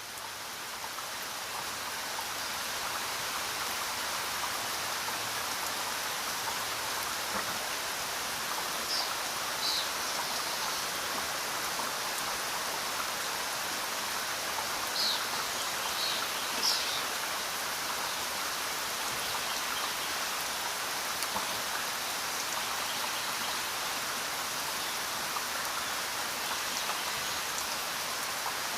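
Steady rain falling, an even hiss of drops that swells up over the first few seconds. A few brief high chirps stand out about a third and halfway in.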